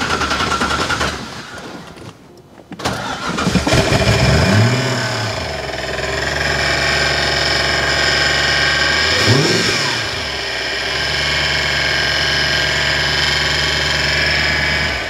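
Swapped-in Audi V8 engine running with a chattery racket, shut off about a second in, then restarted after a short pause and revving as it catches. It is blipped once about halfway, runs steadily, and cuts off near the end. The owner suspects the racket comes from the power steering pump, which was drained and needs bleeding.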